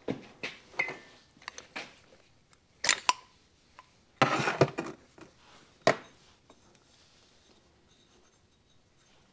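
Small metal engine parts and hand tools being handled and set down on a workbench: a string of clinks and knocks, the loudest about three seconds in, a short stretch of rattling and rustling a second later, and a last sharp clink about six seconds in.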